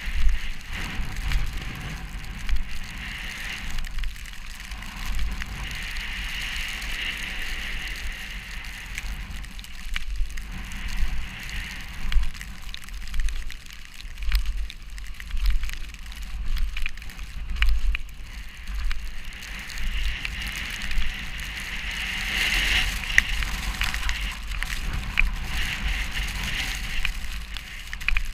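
Storm wind gusting over the microphone in a snowstorm: an uneven low buffeting that rises and falls, with a steady crackly hiss over it.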